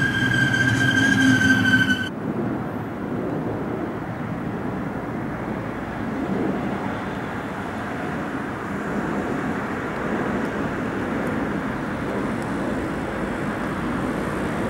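Double-deck regional train passing close below with a steady high whine over its running noise, cut off abruptly about two seconds in. After that, a steady even rumble of trackside background noise while a locomotive-hauled train is still far off.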